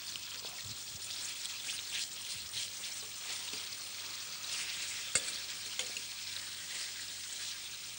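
Lamb rib chops sizzling in oil in a frying pan as they are browned, with a single sharp click about five seconds in.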